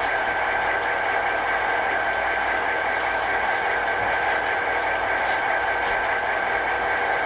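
Steady mechanical hum with a constant high whine, with a few faint light clicks over it.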